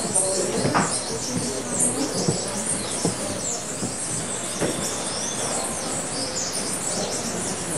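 Many small birds chirping and twittering, with short, high sweeping calls overlapping throughout over a steady hiss, and a few faint knocks.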